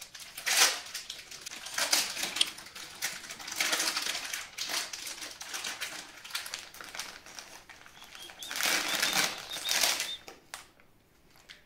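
A small clear plastic bag crinkling and rustling in the hands as a small part is worked out of it, in irregular bursts with small clicks. The crinkling is loudest about nine seconds in, then dies down.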